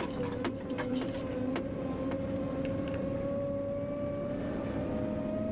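Diesel engine of a John Deere farm machine running, heard from inside its cab, its pitch climbing slowly as it pulls away out of a hard turn. A few light clicks and rattles come in the first second or so.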